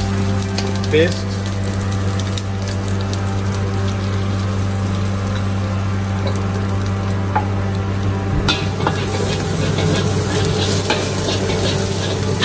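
Ginger and garlic sizzling in hot oil in a wok, with a steel spatula stirring and scraping against the pan, its clicks and scrapes more frequent in the second half. A steady low hum runs underneath.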